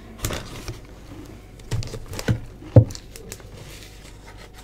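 Sheets of painted paper being set down and handled on a table: a few light knocks and paper rustles, the loudest knock near three seconds in.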